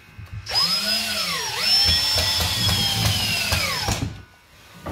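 Cordless variable-speed drill driving a 1 5/8-inch drywall screw into a wooden stretcher-bar corner joint. The motor whines, slows once under load about a second and a half in, picks back up and holds steady, then stops about four seconds in.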